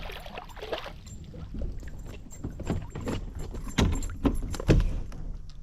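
Irregular knocks and clatter on a Crescent CK1 kayak's plastic hull, with light metallic jingling, as a just-landed bass and tackle are handled aboard. Two heavier thumps come about four and five seconds in.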